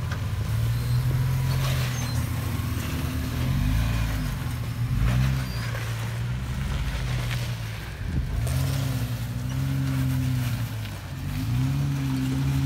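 Jeep Wrangler engine revving up and dropping back about five times under low-speed throttle as it crawls up over granite rock ledges.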